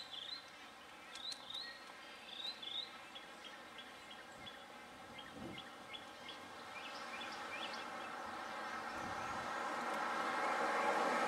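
Birds give short rising chirps, repeated in quick runs for the first few seconds, then quicker high clipped notes. From about halfway, a broad engine-like rushing noise swells steadily until it is the loudest sound near the end.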